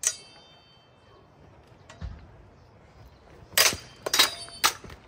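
Steel swords clashing in a duel: one sharp ringing clash at the start, a dull thump about two seconds in, then a quick flurry of four or five blade-on-blade hits, several of them ringing.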